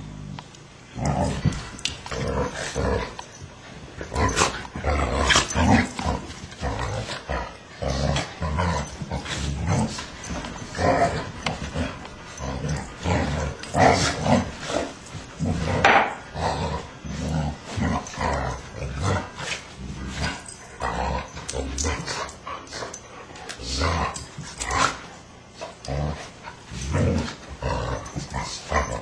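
A Shiba Inu and an Akita play-fighting: a rapid, irregular run of short dog vocalisations that goes on without a break.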